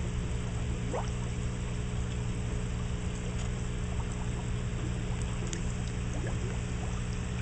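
Water splashing and trickling into an aquaponics fish tank, with small rising bubble plinks scattered through it over a steady low hum.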